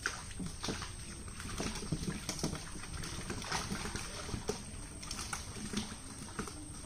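Shallow muddy pond water splashing and sloshing as men wade through it and grope in the mud with their hands, many short irregular splashes.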